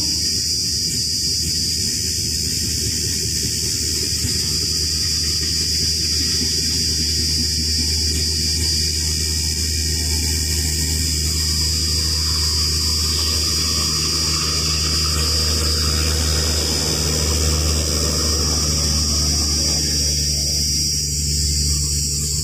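Indian Railways express passenger coaches rolling past at speed: a steady rumble and rush of wheels on the rails.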